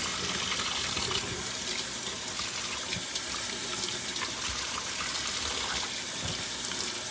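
Kitchen faucet running steadily into a stainless steel sink, the stream splashing over a piece of meat being rinsed by hand.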